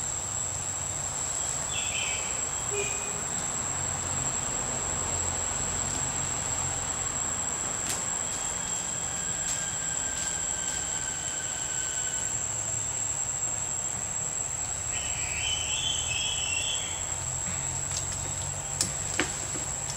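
Forest insects, cicadas or crickets, keeping up one steady high-pitched drone, with a few brief chirps about two seconds in and again near the three-quarter mark, and a few sharp clicks near the end.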